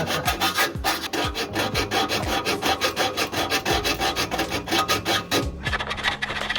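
Hacksaw cutting through rusted exhaust header bolts in rapid back-and-forth rasping strokes, about four to five a second. The strokes stop about five and a half seconds in.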